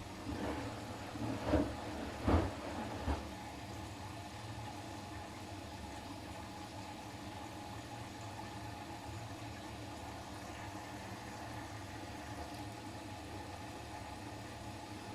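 Siemens iQ500 front-loading washing machine on its delicates programme: four soft thuds of laundry and water tumbling in the turning drum in the first three seconds, then a steady hum with a light hiss of water flowing in.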